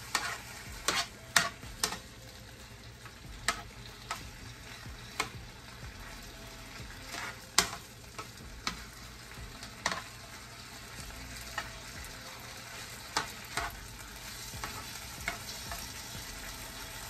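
Shrimp frying in melting butter in a frying pan, a steady sizzle, broken by irregular sharp clicks of metal tongs as the shrimp are turned.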